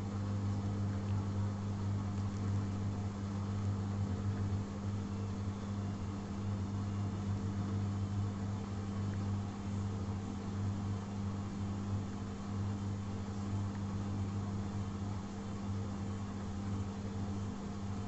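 Atlant 60U1010 front-loading washing machine running through its rinse and intermediate spin, a steady low hum with an even level throughout.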